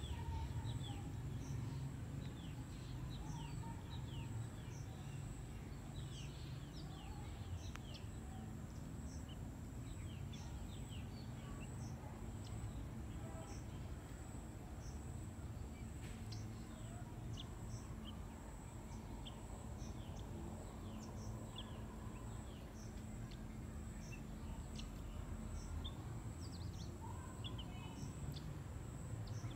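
Outdoor garden ambience: small birds chirping in frequent short, quick notes over a steady high-pitched hum and a low rumble.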